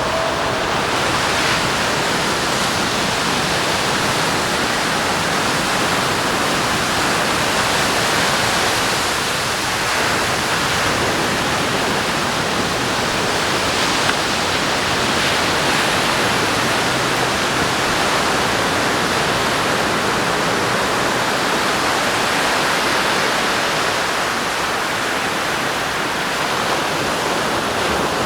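Sea surf washing onto a sandy beach: a steady rush of noise with gentle swells in loudness.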